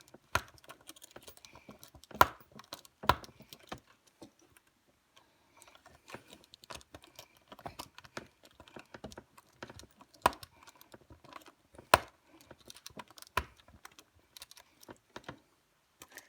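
Screw being driven in by hand with a screwdriver to fix a doorstop spring down, giving a run of small irregular clicks and taps with a few sharper knocks.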